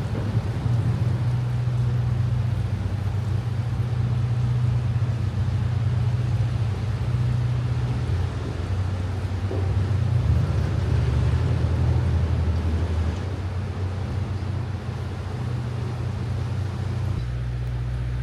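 A low, steady engine hum that holds throughout, its pitch shifting slightly about three-quarters of the way through.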